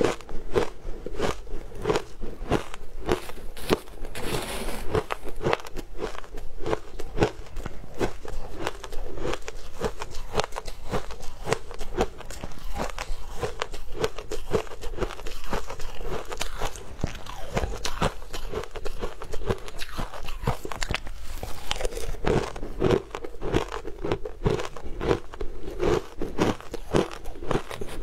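Shaved ice crunching between the teeth, close-miked: a steady run of crisp, irregular crunches, two or three a second.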